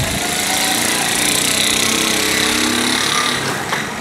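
A loud, steady engine noise close by, easing off near the end.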